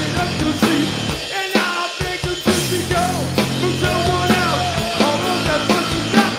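Live rock from a bass-and-drums duo: electric bass guitar and a drum kit playing steady hits, with the drummer singing a held, bending vocal line through the middle.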